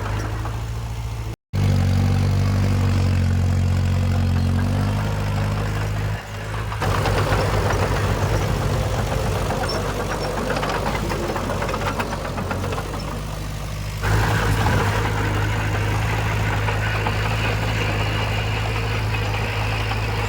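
Diesel engines of heavy earthmoving machinery running steadily. The sound cuts out for an instant about a second and a half in and changes abruptly about 7 and 14 seconds in, as if spliced.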